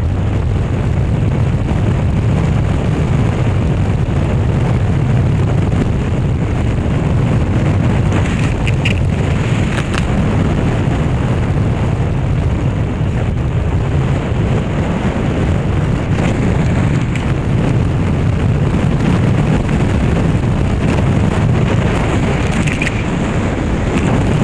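Steady heavy wind rumble on a handlebar-mounted action camera's microphone while riding a motorcycle at road speed, with the motorcycle's running noise beneath it.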